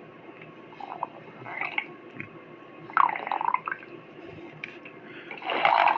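Cartoon stomach rumbling of an animated sloth: a string of wet gurgles and bloops. One slides down and back up in pitch about three seconds in, and the loudest comes near the end.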